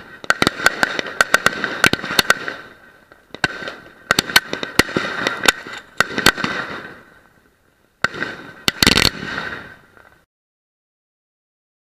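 Blackboxx Knallbär firework battery firing rapid sharp bangs and crackle in three bursts, going quiet about ten seconds in. The battery has broken loose from its stand and is firing toward the ground.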